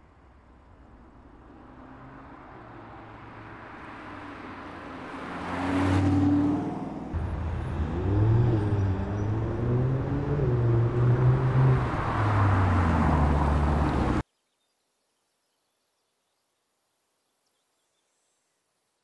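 Audi R8 Spyder V10 Plus's V10 engine growing louder as the car approaches and passes about six seconds in. The engine note then rises and falls repeatedly with the revs, before the sound cuts off suddenly about fourteen seconds in.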